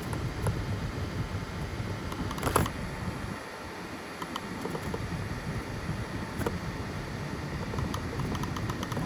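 FDM 3D printer running a print: a steady hum from its fans and stepper motors, with scattered small ticks and one sharper click about two and a half seconds in.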